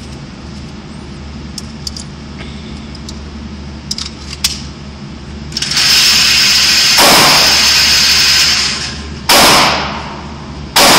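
Gunshots in an indoor firing range: two sudden loud bangs near the end, each ringing away for about a second in the range's echo. Before them comes a few seconds of loud, continuous rushing noise.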